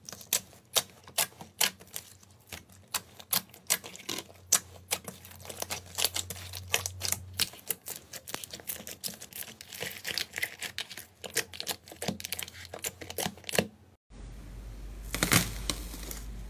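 Thick slime with stick and bead add-ins squeezed and kneaded by hand, giving an irregular string of sharp sticky pops and clicks, several a second. About fourteen seconds in it breaks off, and foil-covered slime crinkles under the fingers over a low hum.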